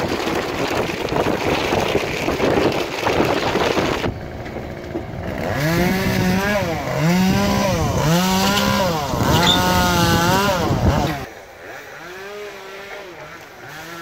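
Chainsaw blipped repeatedly, its pitch rising and falling about once a second, after a few seconds of steady rushing noise. Near the end it drops to a quieter, lower run.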